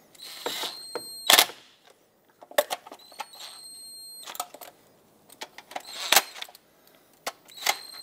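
Cordless power ratchet running in short bursts of high motor whine, snugging down intake manifold bolts, with sharp clicks and knocks between the bursts; the loudest knock comes just after the first burst.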